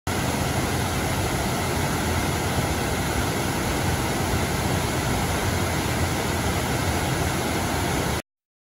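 Water pouring over the rim of a reservoir's bellmouth overflow and falling down the spillway shaft: a steady, loud rush of water that cuts off suddenly a little after eight seconds.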